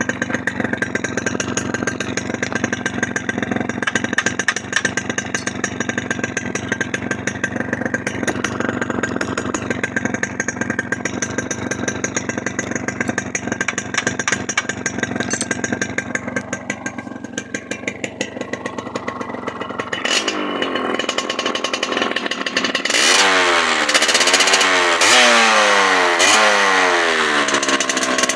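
Small two-stroke motorcycle engine idling with a fast, even exhaust crackle, then revved up and down in several quick throttle blips in the last third.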